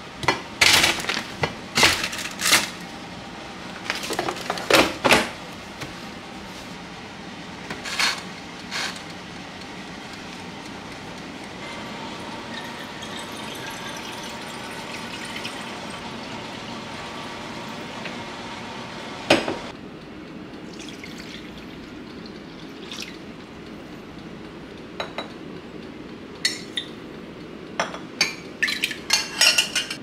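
A run of sharp clattering knocks from metal tongs and an air fryer basket. Then a kitchen tap runs water into a glass measuring jug for about seven seconds and stops with a clack. Light clinks of dishes and glass follow near the end.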